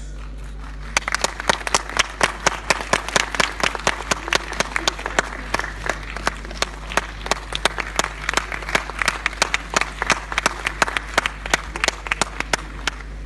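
Audience applauding, a dense run of sharp hand claps starting about a second in and going on to near the end, over a steady low hum.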